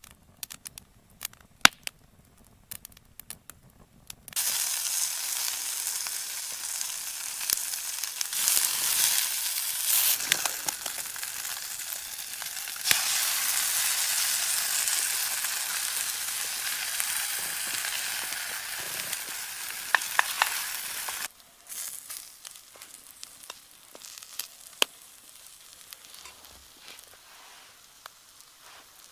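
Food sizzling and frying in a hot pan, a dense hiss with crackles that starts abruptly about four seconds in and cuts off abruptly some seventeen seconds later. Scattered light clicks and crackles come before and after it.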